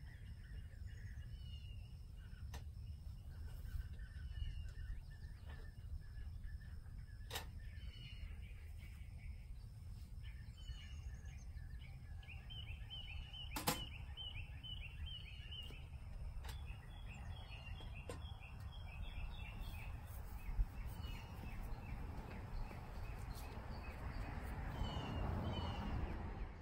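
Outdoor ambience: birds chirping in short repeated calls over a steady low rumble, with a few sharp clicks or knocks scattered through, the sharpest about halfway. A rustling hiss builds over the last few seconds, then the sound cuts off.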